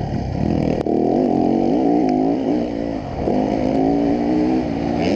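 Dirt bike engine heard from the rider's seat while riding a motocross track, its pitch rising and falling with the throttle. It drops off briefly about three seconds in, then climbs again.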